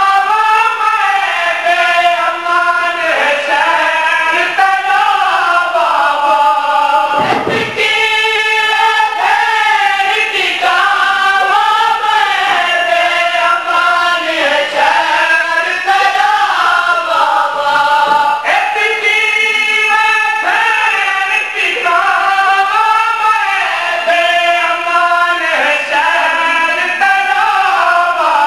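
A group of men chanting a noha, a mournful lament, in chorus through a microphone, the melody rising and falling in short repeated phrases.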